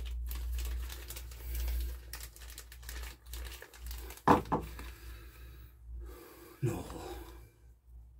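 Small plastic packet of spare carburettor parts crinkling and rustling as it is opened and rummaged through by hand, with a short louder sound about four seconds in.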